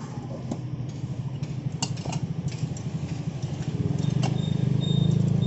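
Small motorcycle engine running at idle, a low pulsing rumble that grows louder about four seconds in, with a few light metal clinks of tongs and a knife against the steamer and plate.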